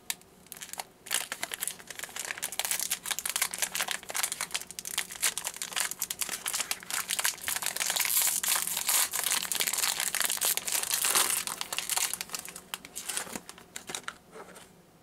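Plastic packaging crinkling and rustling as a new HP ink cartridge is unwrapped, a dense run of crackles that dies away near the end.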